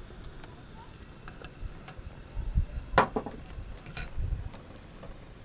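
Dishes and eating utensils clinking during a meal: a few light clicks, with one sharper, ringing clink about three seconds in. Short low bumps come and go in between.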